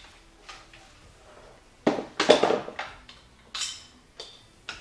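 Several sharp metallic clicks and clacks, the loudest cluster about two seconds in, as the parts of a compact AR-15 rifle are handled and fitted together.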